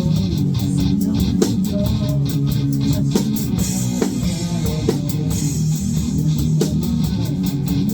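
Band playing an instrumental passage: guitar and bass over a steady drum-kit beat.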